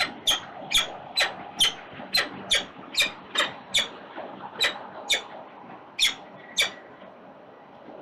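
Peregrine falcons calling at the nest: a series of about fourteen short, sharp calls, each dropping in pitch, at roughly two a second. The calls stop a little before the end.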